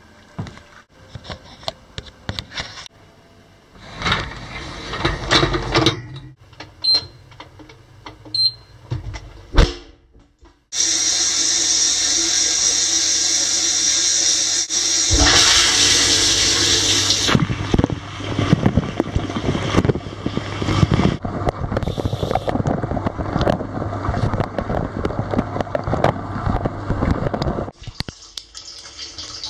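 Dishwasher being started: knocks and handling noise with two short high beeps, then the machine kicks in with a steady low hum and a loud rush of water that surges a few seconds later and stops shortly before the end.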